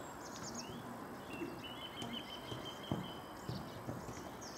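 Faint open-air ambience with small birds chirping and a few soft thumps.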